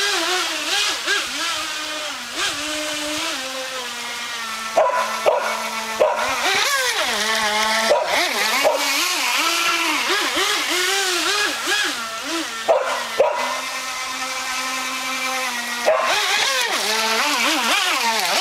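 Radio-controlled boat's motor whining, its pitch rising and falling with the throttle and at times holding steady, over the rush of a shallow stream. A few sharp knocks come between.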